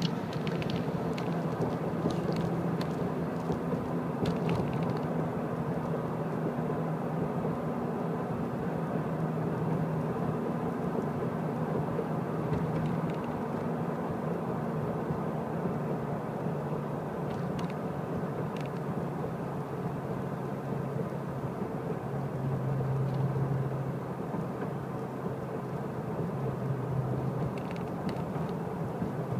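Car engine and tyre noise heard from inside a moving car: a steady drone whose engine note shifts a little as the speed changes, with a few light clicks.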